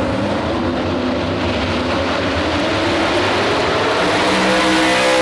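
Ford Super Duty pulling truck's engine running loud and steady while hitched to the weight sled, with music coming in over it near the end.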